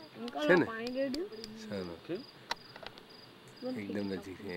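Crickets chirping steadily at night, under short bursts of people's voices calling out, with a few sharp clicks.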